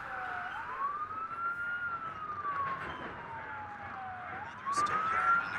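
A wailing siren rising and falling slowly in pitch over a noisy background, played as a constant distracting noise. Sharp clicks come in near the end.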